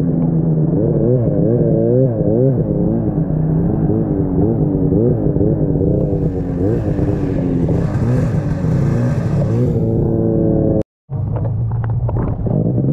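Snowmobile engine running through a tight trail, its pitch rising and falling constantly with the throttle, with a hiss joining in for a few seconds in the middle. After a brief silent break near the end, the engine runs on at a steadier, lower note.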